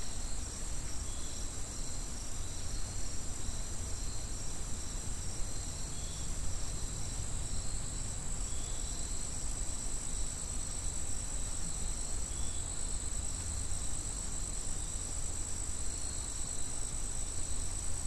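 Insect chorus of steady, high-pitched trilling, with a low rumble underneath.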